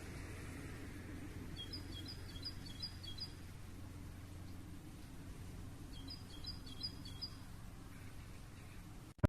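A small songbird twice gives a short phrase of quick, high repeated chirps over a steady low outdoor background rumble.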